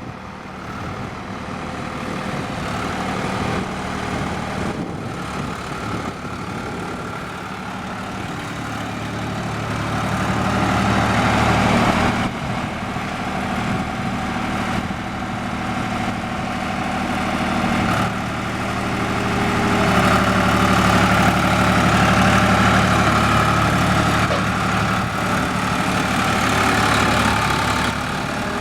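Backhoe loader's diesel engine running steadily, growing louder about a third of the way in and again past the middle before easing off.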